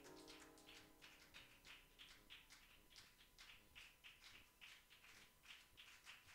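Near silence: music dies away within the first second, leaving only faint, irregular taps or rustles, several a second.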